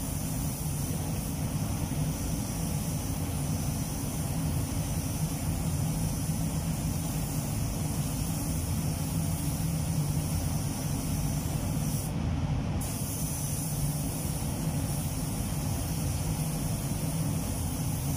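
Compressed-air spray gun hissing steadily as clear coat is sprayed, over the steady low rumble of the spray booth's ventilation. The hiss cuts out briefly about twelve seconds in, as the trigger is released.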